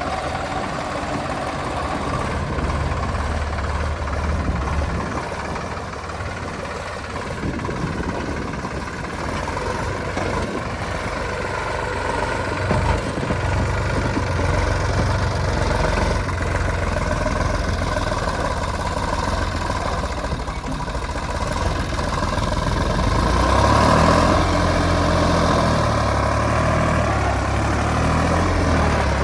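Diesel engines of a JCB 3DX backhoe loader and a tractor running while soil is loaded, a steady low rumble that grows louder for a few seconds about three quarters of the way through, with the engine pitch rising and falling near the end.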